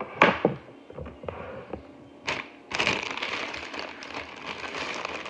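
Plastic produce bags being handled: a couple of sharp crackles, then steady crinkling and rustling from about halfway through.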